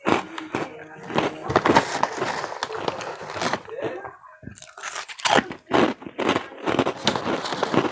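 Close-miked crunching and chewing of crunchy fried snack sticks (Slim Jim Fire Fries), many sharp bites in quick succession, with the snack bag crinkling as a hand reaches into it.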